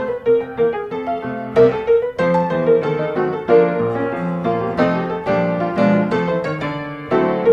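Background piano music: a light tune of quick, evenly struck notes.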